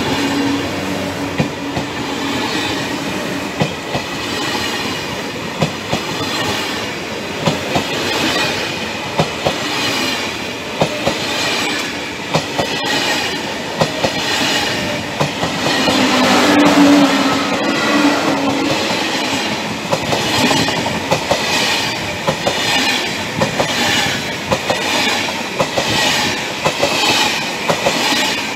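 TGV Duplex double-deck high-speed train rolling past, its wheels clicking over the rail joints through a continuous running rumble. It swells louder for a moment about halfway through.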